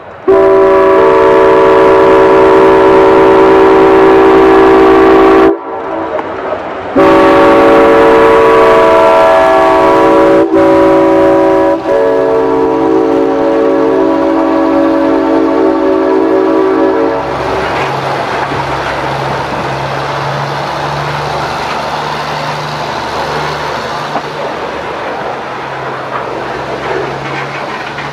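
Diesel locomotive air horn sounding the grade-crossing signal, two long blasts, a short one and a final long one, loud and chorded. Then the locomotive's diesel engine hums low as the train rolls past, with steel wheels rumbling on the rails.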